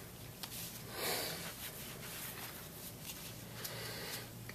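Faint handling sounds of gloved hands on the stainless pump head parts and bench: soft rubbing, a louder rustle about a second in, another near the end and a few light clicks, over a low steady hum.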